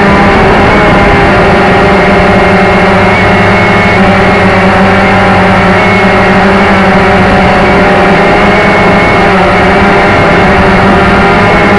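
Motor and propeller of a radio-controlled model aircraft, heard loud and close from a camera carried on board: a steady drone with a slight wavering in pitch, over a rush of air across the microphone.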